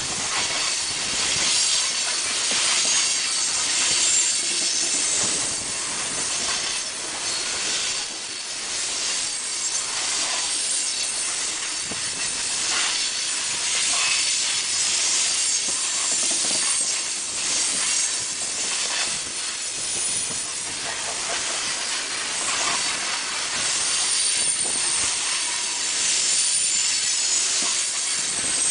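Freight train's open-top hopper cars rolling past on the rails: a steady rush of steel wheels on rail with irregular clacks, and a faint high wheel squeal near the end.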